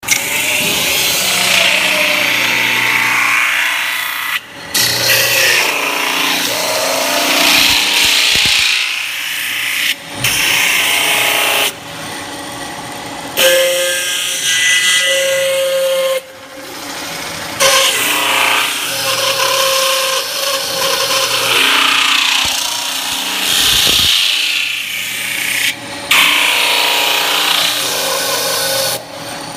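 CNC metal spinning machine turning a sheet-metal disc while its forming roller presses the rim into a dished head: a loud, steady hissing scrape, at times with a steady high whine. The sound changes abruptly several times.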